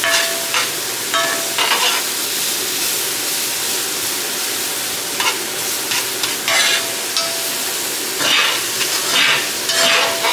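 Diced mushrooms sizzling in hot oil in a frying pan as they are stirred together with beef broth base. A louder scrape of the utensil against the pan comes every second or two.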